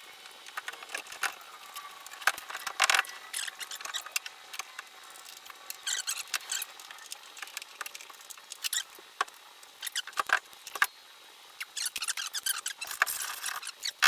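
Irregular metal clicks, knocks, scrapes and short squeaks of a VW Beetle door and its hinge parts being handled and fitted, louder in clusters about 3 s in, near 6 s and through the last few seconds.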